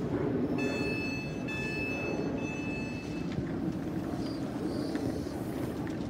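Electric multiple-unit train starting to pull out of the platform: a steady low rumble, with a high whine of several steady pitches that starts about half a second in and stops about three seconds in.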